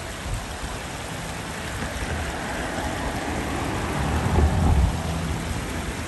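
Steady outdoor rushing noise, with a low rumble that swells about four to five seconds in.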